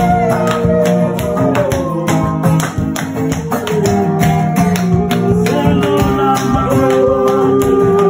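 Music: a voice singing a melody in long held notes over instrumental backing with a quick, steady percussion beat.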